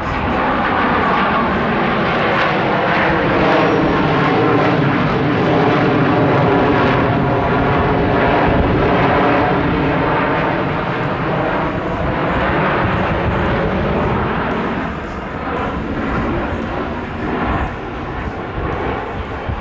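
Four Blue Angels F/A-18 Super Hornet jets flying over in formation: a loud, steady jet roar whose tone sweeps down and back up as they pass, easing off slightly near the end.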